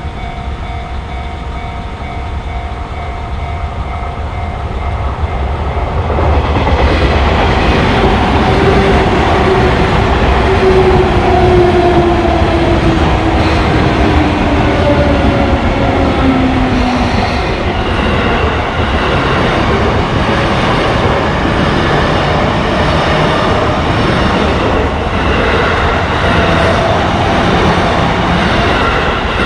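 A Sotetsu Main Line electric train passing a level crossing. The sound grows loud about six seconds in, and a slowly falling whine runs under the rail noise for several seconds. The noise carries on to the end as the cars go by.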